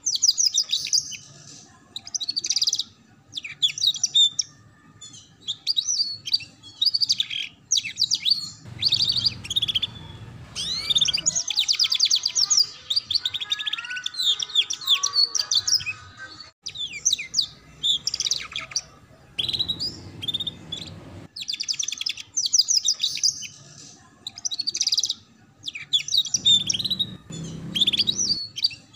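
Domestic canary singing: chirps, whistles and fast trills in short phrases, with brief pauses between them.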